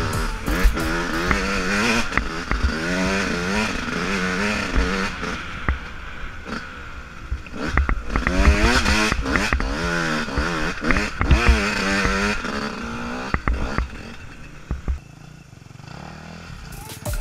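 Yamaha YZ125 125cc two-stroke single-cylinder dirt bike engine revving up and down again and again as it is ridden over a rough, muddy trail, with scattered knocks and rattles from the bike. The engine note drops lower and quieter near the end as the rider backs off the throttle.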